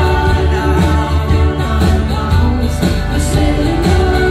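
Live band music: strummed acoustic guitar over drums and a heavy low end, with a male lead voice singing.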